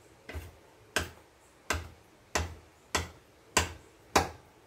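A knife chopping down through folded fresh semolina pasta dough, cutting it into noodles: even, sharp knocks about every two-thirds of a second, seven in all.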